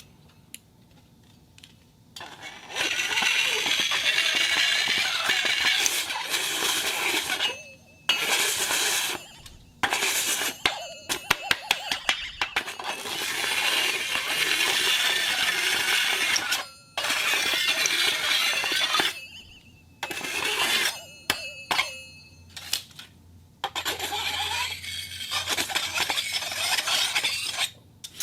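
Metal scraping and clinking on an iron plate spinning on a turntable: stretches of harsh grinding scrape broken by short pauses, a run of sharp clicks about halfway through, and ringing metallic tones in the later part.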